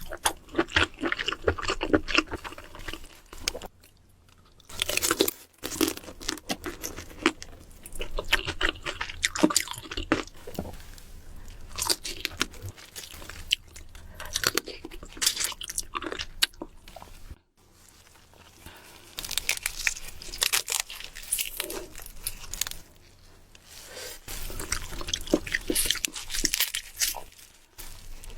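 Close-miked crunching and chewing of crisp food, in bursts of crackly bites with short pauses between them.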